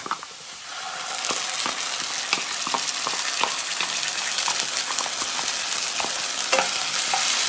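Sliced onions frying in oil in a non-stick pan, the sizzling growing louder about a second in as wet ground masala paste goes into the hot oil. A wooden spatula taps and scrapes against the pan and the paste container throughout.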